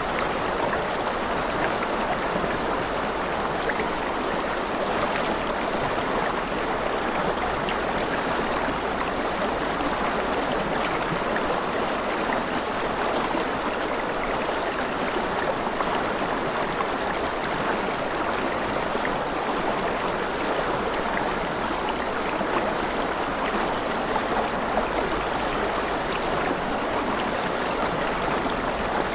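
Rushing river water flowing steadily over rocks, an even rush with small splashes and gurgles scattered through it.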